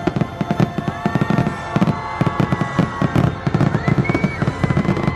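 Fireworks show barrage: a fast, dense string of bangs and crackles, several a second, over orchestral show music.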